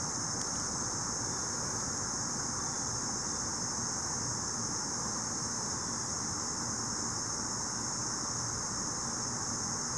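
Steady outdoor ambience: a constant high-pitched insect drone, unbroken throughout, over a low steady rumble.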